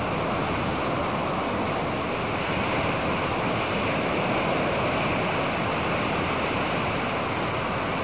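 Strong wind rushing steadily through tall evergreen and bare trees during a winter windstorm's high winds.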